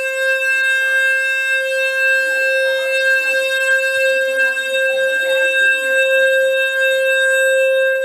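Building fire alarm sounding a loud, steady electronic tone without a break.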